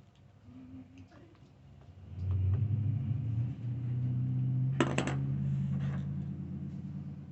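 A person blowing their nose into a tissue: a long, low blow that starts about two seconds in, breaks off briefly, then carries on and fades near the end, with a short crackle about halfway through.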